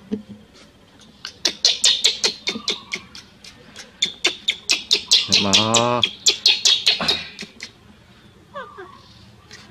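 Infant macaque squeaking in a fast run of sharp, high chirps, four or five a second, with a few short falling whimpers, the distress crying of a newborn monkey. A brief falling call sounds about halfway through.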